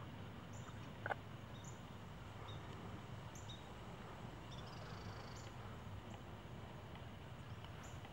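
Faint outdoor ambience: a steady low hum with small high chirps every second or so, and a single short tap about a second in.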